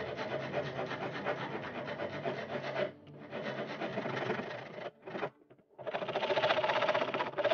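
Flat hand file rasping across a wooden katana handle, rounding off its end in back-and-forth strokes. The filing pauses briefly about three and five seconds in, then comes back louder.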